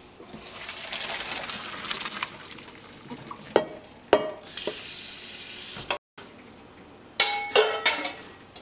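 Pot of boiled kale drained into a colander in a steel sink: the hot cooking water pours and splashes for a few seconds, then a few sharp metal knocks of the pot on the sink, a second rush of water, and several ringing clanks of metal pot and bowl near the end.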